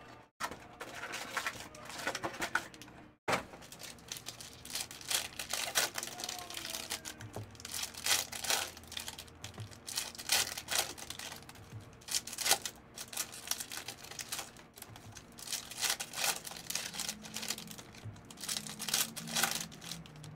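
Foil wrappers of football trading-card packs crinkling and tearing open, mixed with rapid clicking and flicking of cards being handled and sorted.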